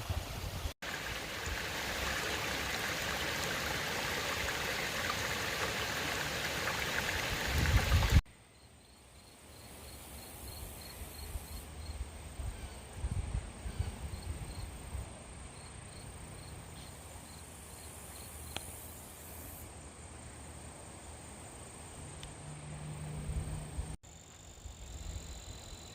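Creek water running steadily, a loud even rush for the first several seconds. After a cut it gives way to a much quieter outdoor background with low rumbles and a few faint high chirps.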